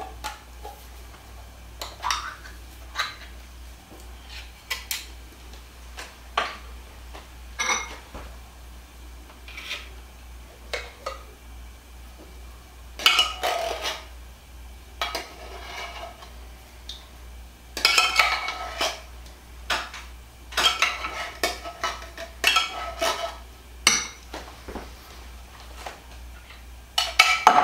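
A metal spoon clinking and scraping against a tin can and a glass bowl as condensed cream of chicken soup is spooned out into mayonnaise. Scattered single clinks and taps, with denser runs of scraping and clinking in the middle and near the end.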